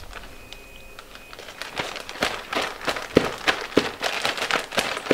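Plastic Ziploc bag crinkling and rustling as raw fish fillets are dropped into it by hand for coating, a flurry of irregular crackles that starts about a second and a half in.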